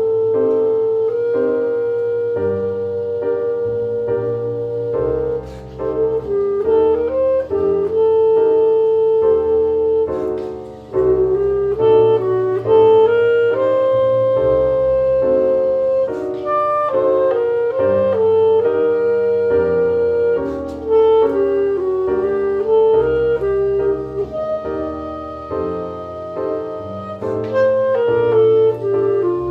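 Clarinet playing a melody of held and moving notes over piano accompaniment.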